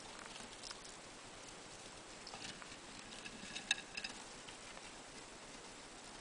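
A small pet rodent scurrying through wood-shaving bedding: faint rustling and scratching, with a quick cluster of sharp clicks a little past halfway.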